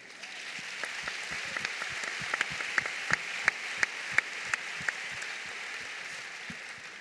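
Audience applauding. It swells in over the first second and fades out near the end, with a run of sharper single claps close by in the middle, about three a second.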